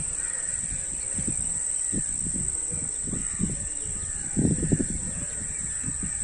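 Evening outdoor chorus: a steady high-pitched insect trill, with crows cawing faintly now and then. Low irregular thumps on the microphone are loudest about four and a half seconds in.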